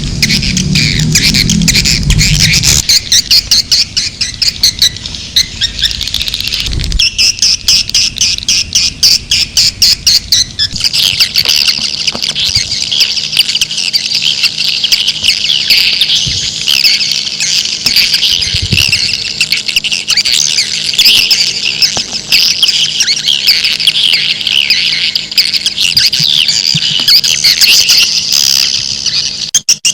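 Swiftlet calling recording: edible-nest swiftlets twittering in a dense, continuous stream of high chirps, the kind of lure call played to draw swiftlets into a swiftlet house. A fast run of clicks comes in between about 7 and 10 seconds, and a steady low hum sits under the chirping from about 11 seconds on.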